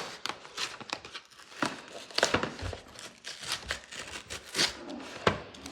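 A package being torn and crinkled open by hand: irregular crackling and rustling of the packaging.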